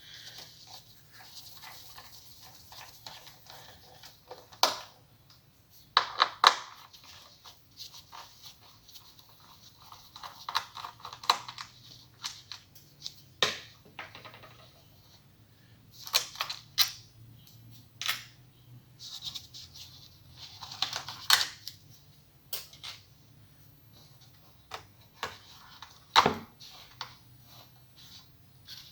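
Scattered sharp clicks, light metallic taps and short scraping sounds of a screwdriver and small hardware being handled while the Torx screws holding an iMac's internal hard drive are taken out.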